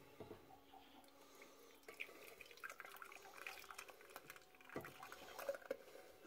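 Faint pouring and dripping of a thick, frothy cream-and-milk ice cream base from a metal bowl into an ice cream maker's frozen bowl, with small irregular splashes.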